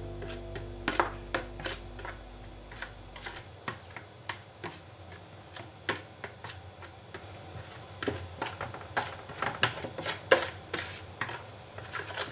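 A wet spice-and-herb marinade being stirred around a plastic mixing bowl: irregular light clicks, taps and scrapes against the plastic, several a second, with no steady rhythm.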